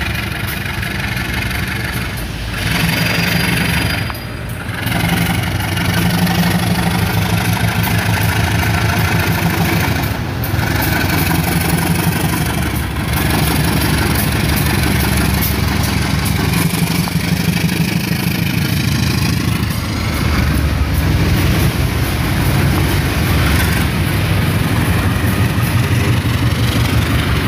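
Diesel-electric locomotive engine working hard under load as it climbs a steep grade with a train of cement tank wagons. The engine runs steadily and loudly as the locomotive approaches and passes close below.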